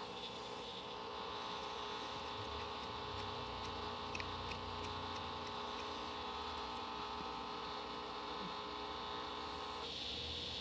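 Electrolux LTC15 top-loading washing machine running with a steady hum; a higher motor whine comes in about a second in and stops near the end.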